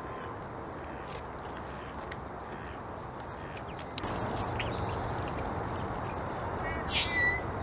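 Steady outdoor background noise with scattered bird calls; a short, sharp call stands out about seven seconds in. The background gets louder about halfway through.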